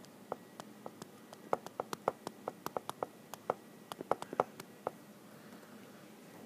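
Stylus tip tapping and clicking on a tablet screen while handwriting: a quick, irregular run of light clicks, thickest from about a second and a half in to near five seconds.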